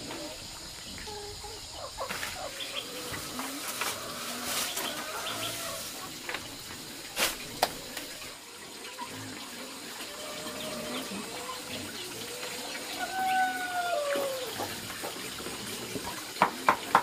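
Farmyard ambience with chickens calling and a few scattered knocks. Near the end a knife starts chopping leafy greens on a wooden board, quick even chops about four or five a second.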